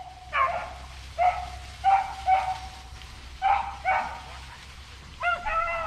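Rabbit hounds baying on the chase: a string of short yelping bays every half second to a second, ending in a longer drawn-out cry near the end. The bays are the pack running a rabbit's trail.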